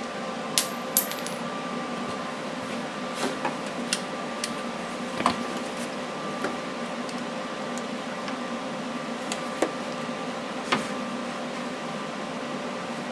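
Scattered sharp metallic clinks and taps, like small metal parts and tools being handled, over a steady machine hum; the brightest clink, about a second in, rings briefly.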